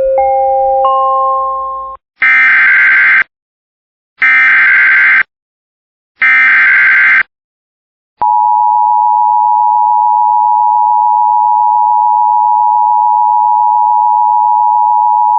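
Emergency Alert System tones announcing a severe thunderstorm warning. A short rising run of electronic chime tones fades out, then come three one-second blasts of SAME header data a second apart. About eight seconds in, the steady two-tone EAS attention signal starts.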